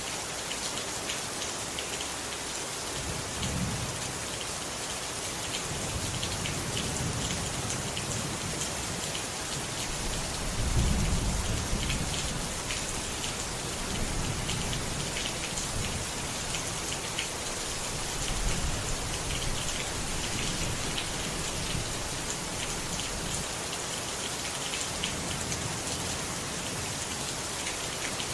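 Steady rain pattering, with several low rumbles of thunder; the loudest rumble comes about eleven seconds in.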